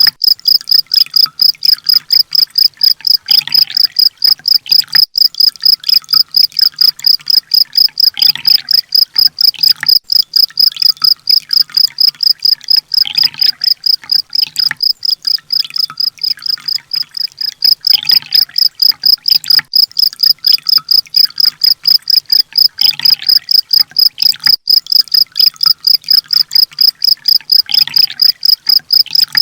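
Looped training recording of kolibri ninja (sunbird) song: a loud, fast, evenly repeated high chirp, a few per second, with a lower sweeping call returning about every five seconds.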